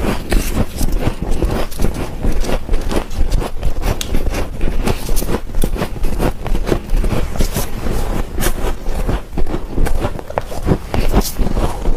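Dry humidifier frost being crunched close to the microphone: a fast, irregular stream of crisp crunches and squeaks.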